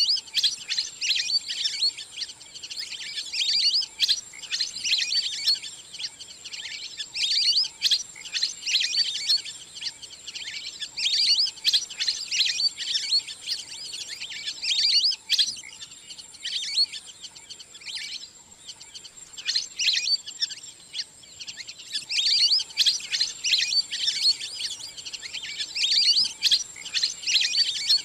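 Wild ducks calling: rapid, high-pitched twittering whistles and chirps in bouts of a few seconds with short gaps, played as a hunting call. A faint steady high tone runs underneath.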